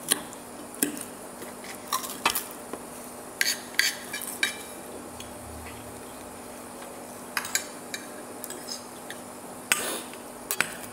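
Metal knife and fork clinking and scraping against a ceramic plate as food is cut and picked up, in scattered clusters of sharp clicks with short pauses between.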